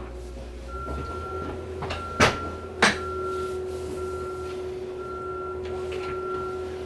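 Two sharp knocks about half a second apart, over a faint steady hum.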